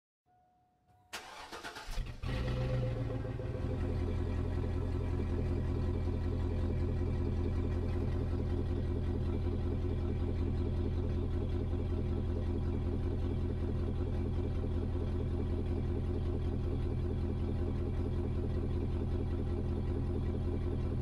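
A Mazda Miata's four-cylinder engine cranked on the starter and catching about two seconds in, then idling steadily. A short faint beep comes just before the cranking.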